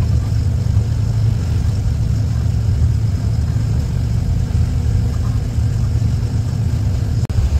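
A truck's engine runs steadily on the move, a continuous low drone. It cuts out for a moment near the end.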